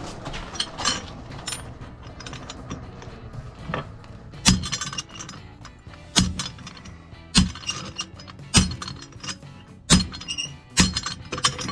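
Hammer blows on hot mild steel at the anvil, fullering a groove around the end of the rod. The blows are spaced about a second or so apart and each leaves a short metallic ring.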